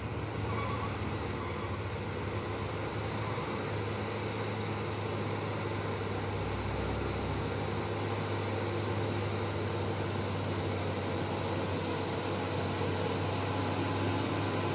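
Loaded Hino dump truck's diesel engine running steadily as it pulls up the incline, a low drone that grows slowly louder as the truck approaches.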